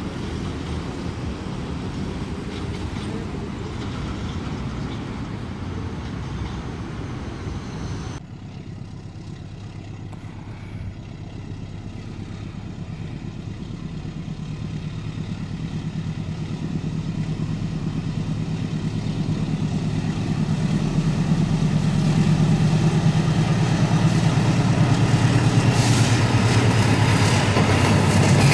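Road traffic with motorbikes for about the first eight seconds. After a sudden cut, a diesel locomotive hauling a ballast train approaches, its low engine drone growing steadily louder toward the end.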